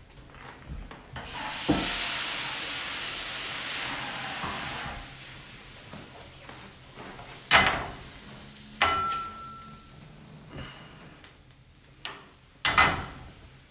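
Kitchen sink tap running for a few seconds, turned on and then shut off abruptly. After it come several sharp knocks, one with a short metallic ring.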